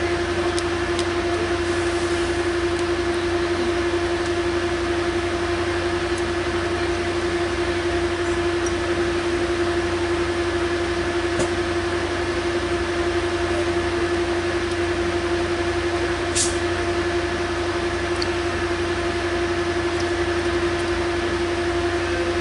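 Caltrain diesel locomotive standing at the platform and idling: a steady hum with a constant whining tone over a low rumble. A short high hiss comes about 16 seconds in.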